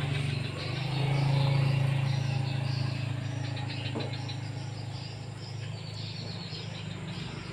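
A motor vehicle engine hums steadily. It grows louder about a second in, then slowly fades.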